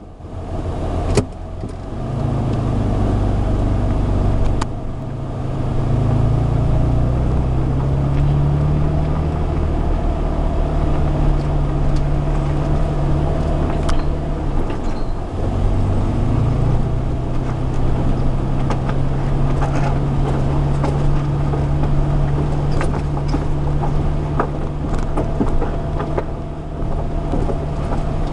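Holden Rodeo ute's engine and tyres heard from inside the cab while driving slowly. The engine note drops and rises a few times in the first half, then holds steady, with scattered knocks and rattles throughout.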